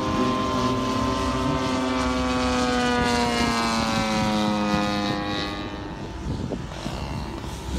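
Radio-controlled WW2 warbird model plane flying past, its engine and propeller note falling steadily in pitch as it goes by, then growing fainter about five to six seconds in.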